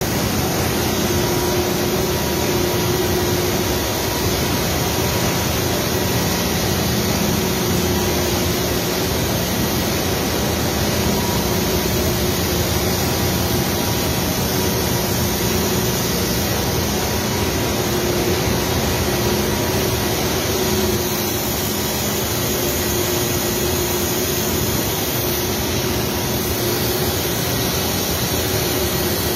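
Steady din of a running bottle production line: conveyor drives and plant machinery running continuously, with a few faint steady hums in the noise.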